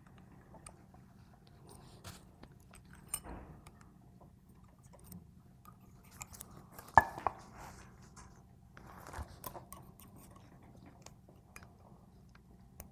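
Small metal clicks and knocks from the parts of a Hardinge lathe cross slide being handled and turned over by hand. The sharpest click comes about seven seconds in.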